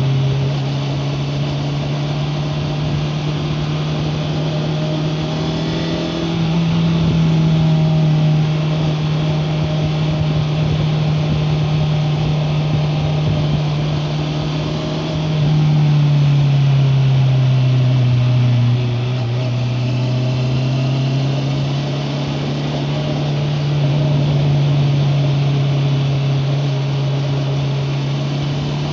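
Honda CBR650R's inline-four engine running at steady cruising revs, with its pitch and loudness rising and falling gently a few times as the throttle is opened and eased, dropping lower for a few seconds mid-way. It is heard slightly muffled from a recorder carried in the rider's backpack.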